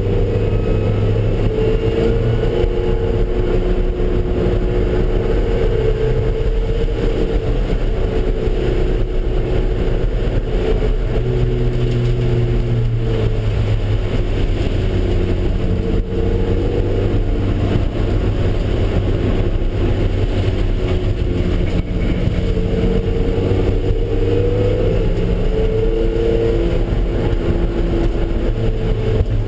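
Car engine running hard on a race track, its pitch climbing under acceleration and dropping off under braking and gear changes, several times over.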